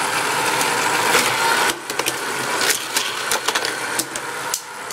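Motorized toy car track booster running with a steady whir, while toy cars clatter and click against the plastic track several times from about two seconds in.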